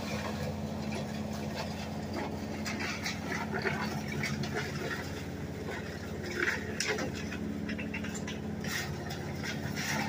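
Tractor-driven WM810 wood chipper running at a steady pitch, with irregular cracks and snaps of wood being chipped and blown out the chute; a couple of louder cracks come about six and a half to seven seconds in.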